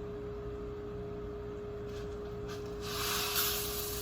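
A pot of rice on the stove with a steady hum under it. About three seconds in a loud hiss sets in, with a single click soon after, and it keeps going.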